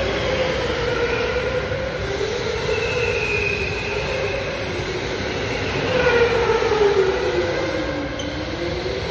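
Electric go-karts running on an indoor track, their motors whining steadily over a noisy hall background. The whine pitch glides down and up with the karts' speed; about six seconds in one kart's whine grows louder and sinks, then climbs again near the end.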